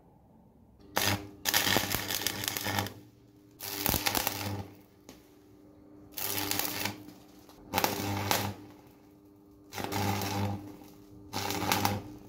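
Small power tool working on metal in six short bursts, each about a second long. A steady motor hum carries on underneath and between the bursts.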